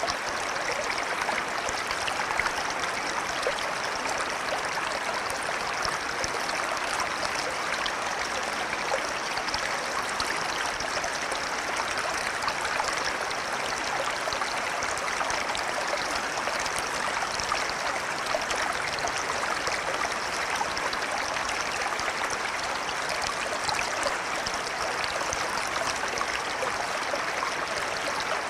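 Flowing river water rushing steadily and evenly, with no change.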